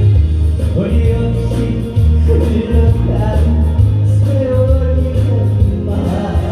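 Loud music with a steady beat and a melody line.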